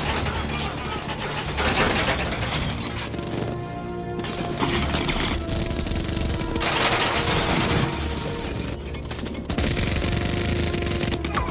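M134 minigun firing in several long bursts with short breaks between them, each burst a continuous stream of rapid shots. A film score with held tones plays underneath.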